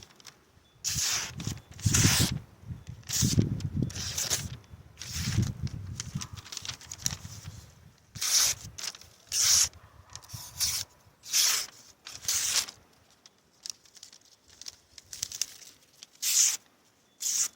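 An OTF stiletto knife's blade slicing through paper, about a dozen short rasping cuts in a row. The blade glides through cleanly, a sign that the edge is sharp.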